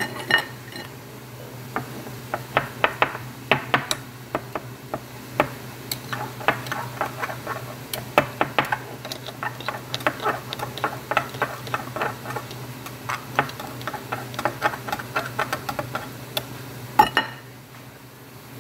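Metal spatula tapping and scraping against a wok while stirring the filling, in irregular clicks a few times a second with one louder knock near the end, over a steady low hum.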